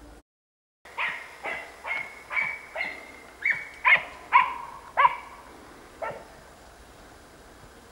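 Dachshund baying at a wild boar: about ten barks at roughly two a second, starting about a second in, loudest toward the middle, and stopping about six seconds in.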